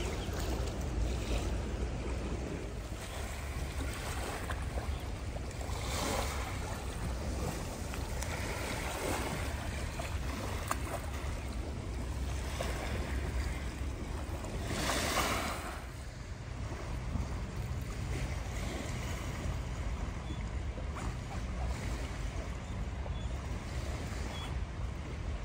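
Wind buffeting the phone's microphone over a steady rush of river water at the bank, with two stronger gusts about six seconds in and again around fifteen seconds.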